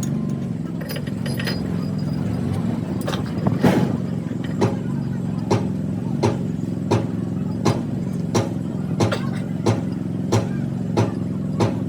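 Steady low mechanical hum, joined from about three seconds in by sharp knocks repeating at an even pace, about one every 0.7 seconds.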